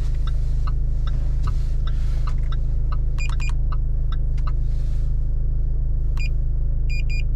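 Steady low rumble of a car cabin on the road, with a few light ticks. Two short clusters of high electronic beeps sound, one near the middle and one near the end.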